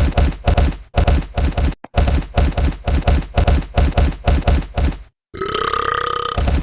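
Chewing sound effect: loud, rhythmic chomping at about three bites a second. About five seconds in it breaks off and gives way to a drawn-out voiced sound.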